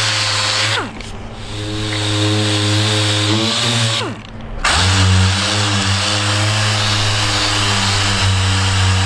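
Handheld palm sander running against a cured fiberglass patch, sanding it smooth. It runs as a steady hum with a hiss, dips in pitch just before a second in, stops briefly about four seconds in, then starts again and runs on.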